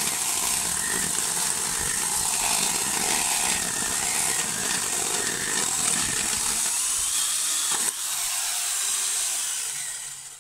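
Electric angle grinder fitted with a small chainsaw attachment, running at full speed and cutting through a wooden log, then winding down near the end as it is switched off.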